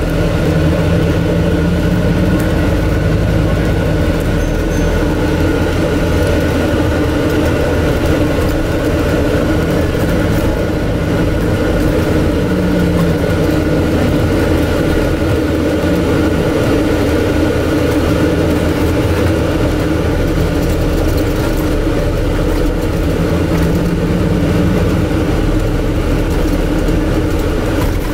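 Scania N250UD double-decker bus heard from inside on the move: its five-cylinder diesel running low beneath a steady, loud rush and hum of the air-conditioning unit, which largely covers the engine.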